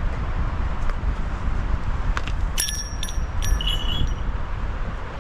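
Small metal bells hung in a tree tinkling, a few clear ringing strikes starting about two and a half seconds in, over a low rumble of wind on the microphone.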